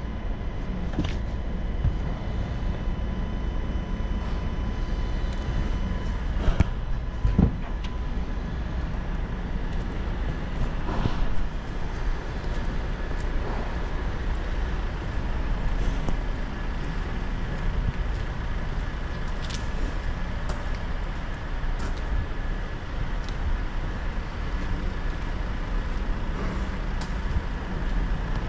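Steady low mechanical drone, with a faint steady whine and a few light knocks scattered through it.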